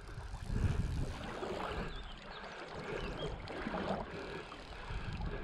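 River water flowing and lapping, with an uneven low wind rumble on the microphone.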